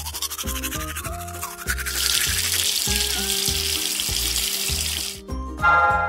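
Background music with a steady beat, over a toothbrush scrubbing at first and then a hiss of running water from about two seconds in to about five. Near the end comes a short, bright sound with several tones.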